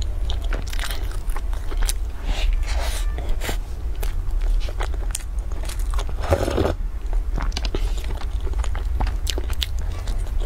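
Close-miked wet chewing and biting of soft stuffed bread buns: many short clicks and smacks, with one longer, louder sip or gulp from a glass about six seconds in. A steady low hum runs underneath.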